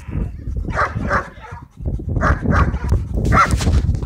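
A dog barking repeatedly, short sharp barks coming in quick pairs.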